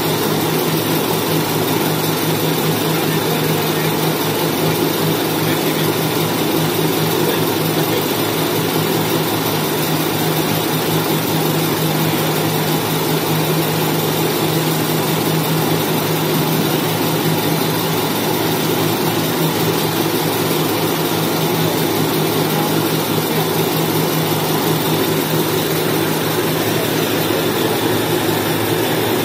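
XY-TQ-G semiautomatic maxi-roll tissue cutting and making machine running: a steady mechanical drone with a constant hum underneath, unchanging throughout.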